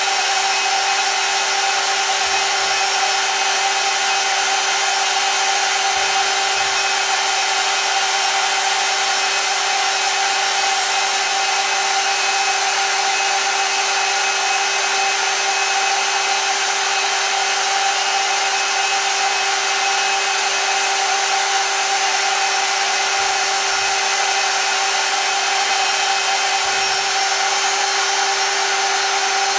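Spindle of a CNC-converted X2 mini mill running with a steady whine while a small end mill routes traces in a copper-clad PC board, over the hiss of a compressed-air water mist.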